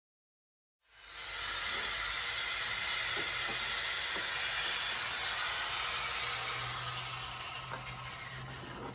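Cutoff tool's abrasive wheel grinding through a metal gutter: a steady, harsh hiss that starts abruptly about a second in and eases a little near the end.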